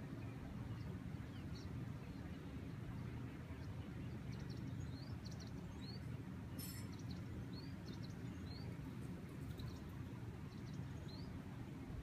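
Small birds chirping, a string of short rising chirps from about four seconds in, over a steady low rumble of breeze. A single sharp click sounds near the middle.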